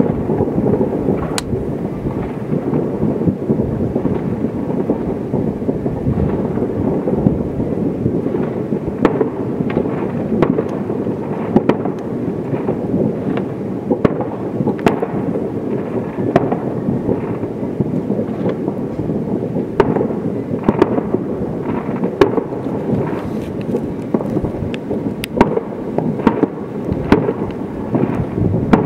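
New Year fireworks and firecrackers going off in the distance: a continuous low rumble with irregular sharp bangs every second or two.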